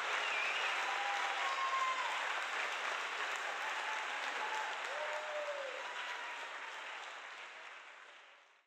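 Audience applauding, with a few short calls from the crowd; the applause fades out near the end.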